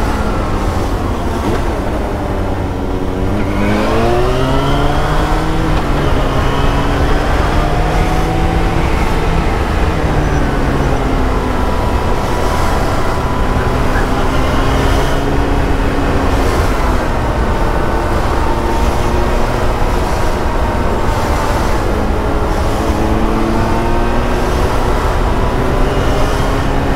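Sport motorcycle engine heard from the rider's seat, its pitch falling and then climbing again several times as the throttle is eased off and reopened while riding slowly between lines of cars.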